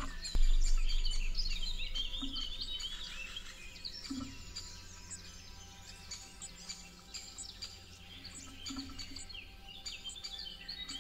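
Many birds chirping and singing at once in spring woodland, with short rapid notes throughout. A low rumble starts about half a second in and fades away over the next few seconds.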